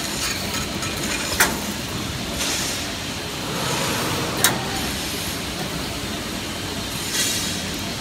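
CNC 3D wire bending machine running, with a steady mechanical noise. Two sharp metallic clicks about three seconds apart, and two short bursts of hiss.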